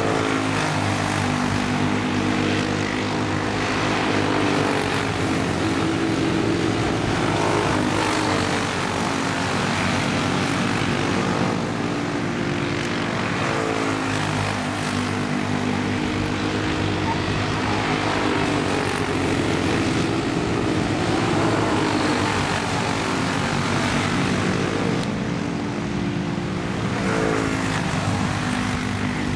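Several small single-seat oval race cars running at race pace, their small engines buzzing together. The pitch dips and climbs again about every six to seven seconds as the pack slows for the turns and accelerates out.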